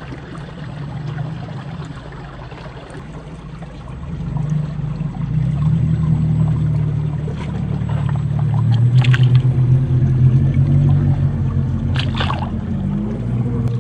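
Electric drive of a 1/10-scale RC crawler, a brushed 550 motor through the SCX10 II gearbox, running with a steady whine that rises and falls with throttle and grows louder partway through. Two brief sharper noises come about nine and twelve seconds in.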